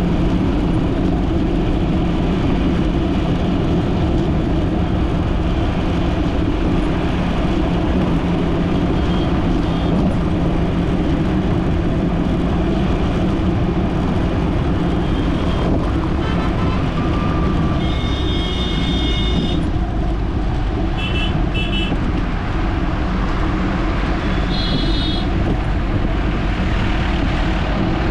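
Steady road noise of a car driving on a city road: engine and tyre hum with passing traffic. In the last third, vehicle horns sound: one long blast, then a quick double toot, then another short honk.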